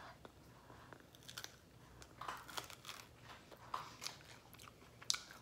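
A person biting into and chewing a toasted mini bagel pizza snack (Bagel Bites), with soft, irregular crunching and mouth sounds and a sharper crunch near the end.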